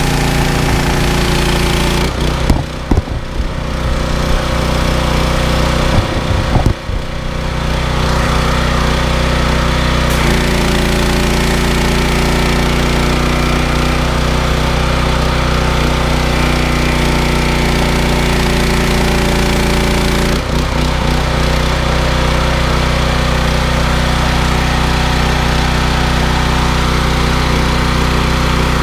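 7 horsepower Loncin petrol engine of a pressure washer running steadily, with brief dips in level about two and six seconds in and shifts in its tone about ten and twenty seconds in.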